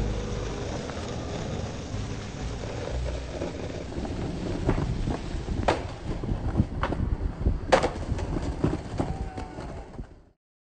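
Skateboard wheels rolling on concrete, broken by sharp clacks of the board popping and landing. The two loudest clacks come about six and eight seconds in. The sound cuts off to silence just before the end.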